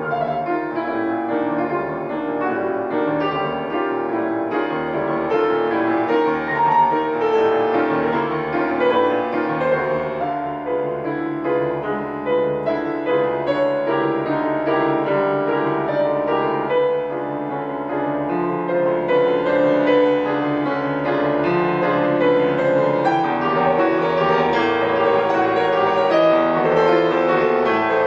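Solo grand piano playing a classical piece with dense, busy passages of many notes, without a pause.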